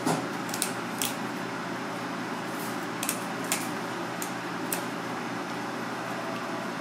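Kitchen shears snipping through a raw red sea bream fillet: short sharp snips, three in the first second and four more between about three and five seconds in, over a steady background hum.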